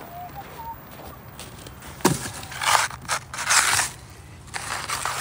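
Snow crunching and scraping in short irregular bursts, after a single thump about two seconds in.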